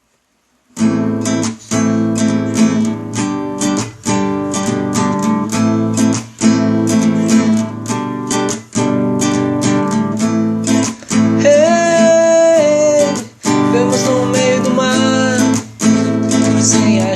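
Song intro: strummed acoustic guitar starting about a second in after silence, in a steady rhythm with short breaks every couple of seconds, and a sliding lead melody line entering partway through.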